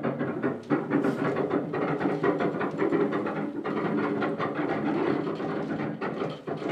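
Hand-pushed locomotive turntable turning under a small saddle-tank engine, with rapid clicking and clatter over a steady low mechanical hum.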